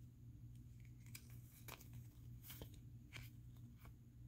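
Faint rustle and soft clicks of Garbage Pail Kids trading cards being slid off a stack and shuffled to the front one at a time, a few brief scrapes over a quiet background.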